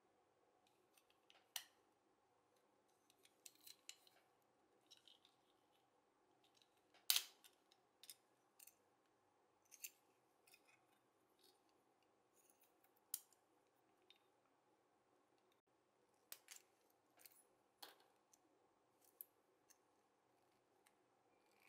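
Scattered small clicks and snaps as a die-cast toy car's metal body and plastic parts are handled and pried apart, with snips from small side-cutting pliers working at the chassis. One sharp snap about seven seconds in is the loudest.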